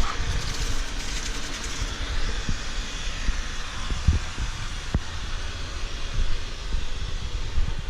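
ECOVACS DEEBOT N79 robot vacuum running: a steady whir from its suction fan and brushes, with irregular low rumbles and a few knocks as it moves across the floor.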